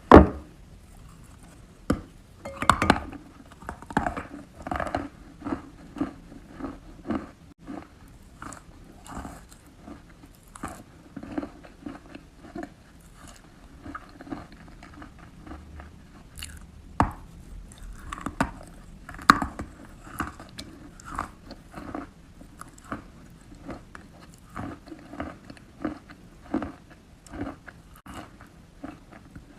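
Close-up biting and chewing of wet chalk: repeated short crunches, a few every second, with a few sharper bites standing out.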